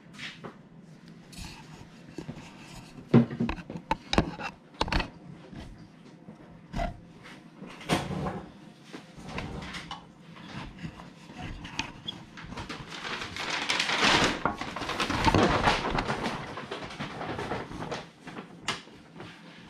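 Scattered knocks and clatters of things being handled and set down in a workshop, then a few seconds of rustling about two-thirds of the way through as a brown paper bag is opened and handled.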